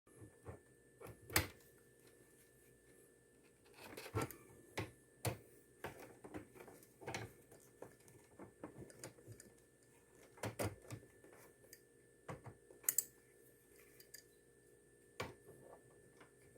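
Irregular light clicks and knocks of objects being handled, a couple of dozen at uneven spacing, the sharpest about a second and a half in and near the end. A faint steady hum lies underneath.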